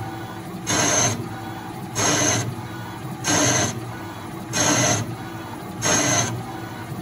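Tormach 8L CNC lathe single-point threading 1018 steel dry: the tool scrapes through a cutting pass about every 1.3 seconds, five passes in all, with the machine running steadily between them. It sounds pretty rough, the sign of cutting the gummy 1018 without coolant, which leaves a poor thread finish.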